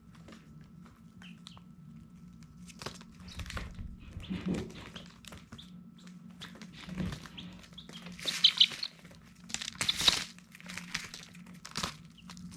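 Baby chicks peeping, with a few sharp high chirps about eight and ten seconds in, over scattered scratching and rustling and a steady low hum.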